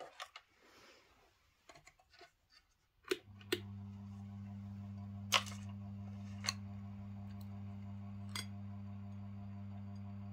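Clicks and light handling for about three seconds, then a ceiling fan motor on AC mains starts a steady low electrical hum, with a few sharp clicks over it.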